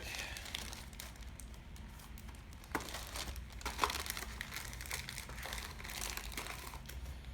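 Paper rustling and crinkling, with a few light taps and clicks, as a printed instruction booklet and leaflet are slid back into a small cardboard box.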